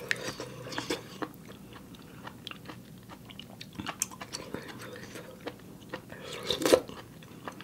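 Close-miked mouth sounds of eating spicy soft-tofu ramen: small wet clicks of chewing noodles and soft tofu, with one louder burst about two-thirds of the way through as noodles go into the mouth.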